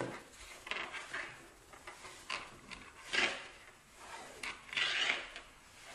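Small buttons and beads being slid and pushed across a wooden tabletop by a child's fingers, heard as a series of short, soft scraping swishes, the loudest about three seconds in and again around five seconds.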